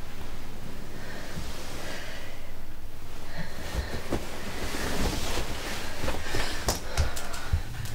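Breathing over a low steady hum, with a run of sharp clicks and knocks in the second half.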